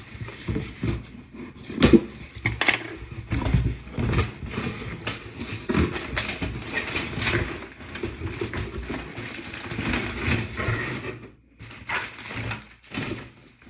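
Irregular rustling, crinkling and knocks of packaging and a straw backpack being handled as it is unpacked, dying down after about 11 seconds.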